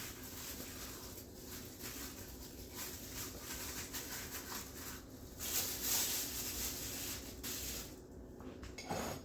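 Quiet kitchen handling noise as raw chicken thighs are worked into a marinade in a bowl: irregular rustling and light knocks, a little louder for a couple of seconds midway.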